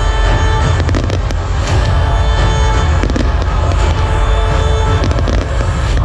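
Fireworks and stage pyrotechnics going off over loud show music with a heavy bass. A cluster of sharp bangs and crackles comes about a second in and another around five seconds.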